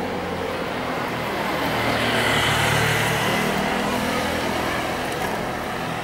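A motor vehicle's engine and tyres passing close on a city street, swelling to loudest about two to three seconds in and then fading, over a steady low engine hum.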